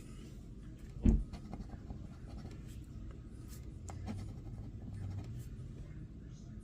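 Coin scratching the coating off a scratch-off lottery ticket in short, faint scrapes, with one soft thump about a second in.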